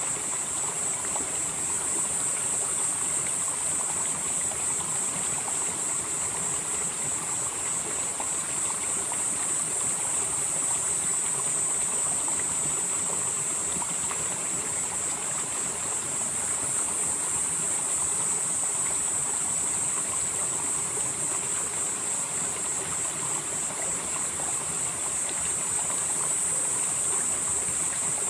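Valley stream flowing steadily over rocks. Over it runs a high, hissing band that swells and eases about every seven or eight seconds.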